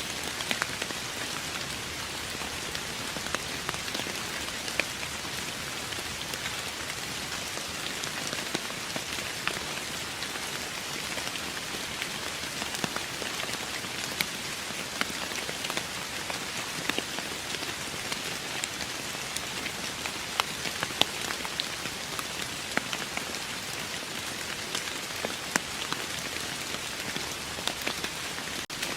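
Steady rain falling on a surface: an even hiss with many scattered sharp drop ticks.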